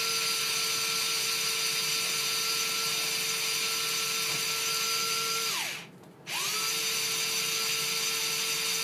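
Battery-powered bone marrow biopsy drill whining steadily as it drives the biopsy needle into the bone. About five and a half seconds in it winds down and stops, then spins back up half a second later and keeps running.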